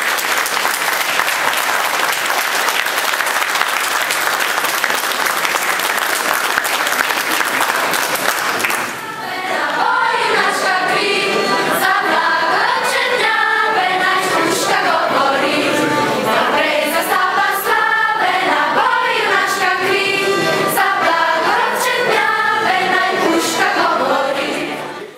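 Audience applauding for about nine seconds, then a children's choir starts singing.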